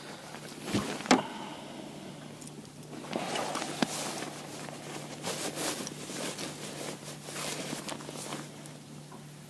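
Knocks and rustling from handling on a small fishing boat: two sharp knocks about a second in, a click near four seconds, then scraping and rustling, over a steady low hum.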